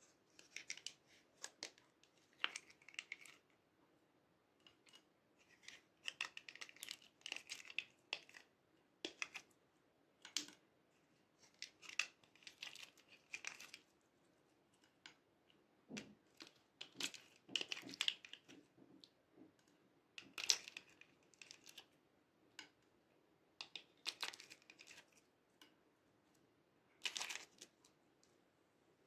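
Sticky slime being peeled and pressed out of a plastic ice-cube mould by hand. It comes in irregular bursts of crackly, sticky clicking with short quiet gaps between them.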